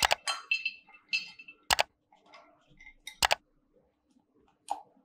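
Spoon scraping and clicking against cookware as the caramel bread is served into a bowl: a quick run of scrapes and clicks in the first second, then sharp double knocks about two seconds in and again a second and a half later, and a lighter knock near the end.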